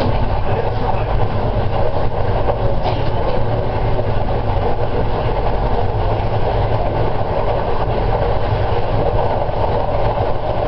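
Train running steadily along the track, heard from the cab: a continuous rumble of wheels on rail.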